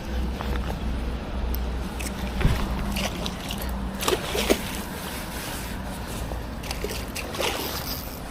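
Water splashing and sloshing in a few short bursts over a steady low rumble.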